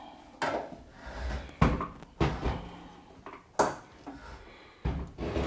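A string of sharp knocks and clunks, about five over a few seconds, from a front-loading washing machine's cabinet and front panel being handled and leaned back.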